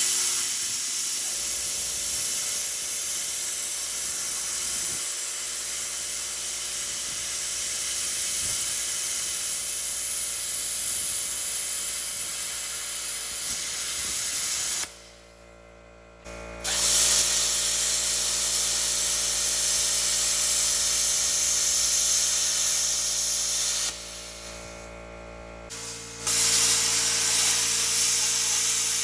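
Plasma cutter hissing steadily as it cuts a bevel into a crack in a thick steel excavator bucket, to prepare it for welding. The cut stops twice, about halfway through and again near the end, and starts again each time.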